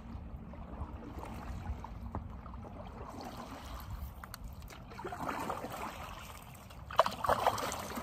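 Stand-up paddle strokes in river water beside an inflatable paddleboard: the blade dipping and pulling with splashing and trickling over a steady low rumble. Two louder strokes come about five and seven seconds in, the second starting with a sharp knock.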